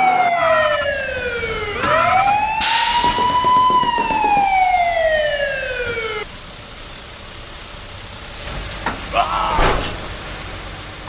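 A wailing siren, its pitch falling slowly, sweeping back up about two seconds in, then falling again and cutting off suddenly about six seconds in. A burst of hiss comes around three seconds in, and a short noisy burst near the end.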